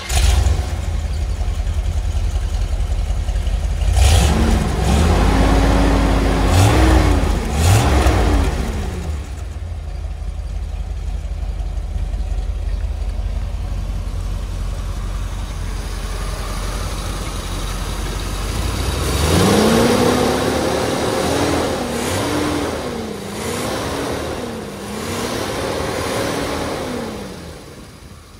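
A 1969 Corvette's 427 cubic-inch big-block V8 starts and runs through its exhaust, with a deep steady idle. It is revved up and held about four seconds in, then blipped twice before settling back to idle. About nineteen seconds in it is revved in a series of four or five quick blips, then drops back.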